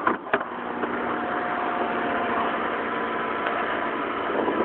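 Suzuki Samurai 4x4's engine running steadily at low revs, heard from inside the cab under an even hiss. A couple of short clicks right at the start.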